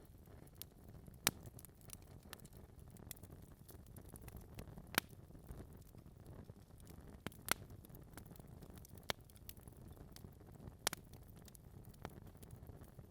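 Wood fire burning in a fireplace: a low steady rumble of flames with sharp, irregular crackles and pops from the logs, a few louder snaps among many small ones.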